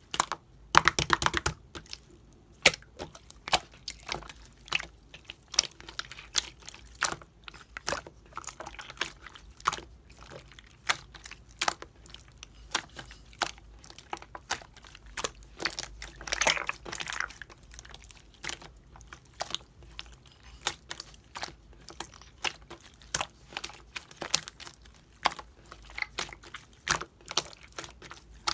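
Clear slime mixed with small beads being squished and pressed by hand, giving irregular crunchy clicks and crackles, with thicker bursts about a second in and again about halfway through.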